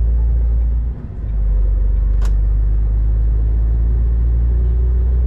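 Low, steady drone of a Scania S500 truck heard from inside the cab while driving, dipping briefly about a second in. A single sharp click sounds a little over two seconds in.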